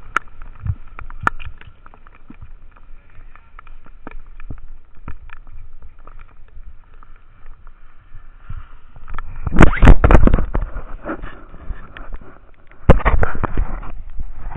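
Skis sliding over wet snow while wind rushes across an action camera's microphone, swelling into two loud surges past the halfway point and near the end. Before the surges it is quieter, with scattered sharp clicks and a faint steady whine.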